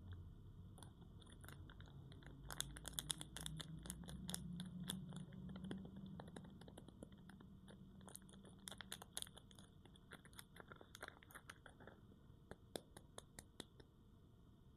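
Crisp crackling and crunching of soap being worked by hand, in dense clusters of sharp clicks a few seconds in and again near the middle, then scattered single clicks.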